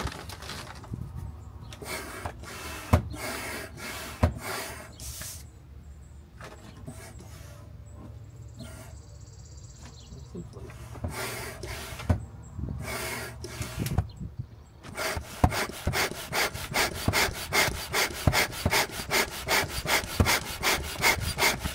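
Hand pump inflating an inflatable stand-up paddle board, each stroke a rasping whoosh of air. The strokes come slowly and unevenly at first, then about two-thirds of the way in settle into a fast, steady rhythm of three or four a second.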